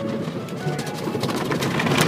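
Music playing inside a car, over the muffled hiss and wash of an automatic car wash's water and brushes on the car.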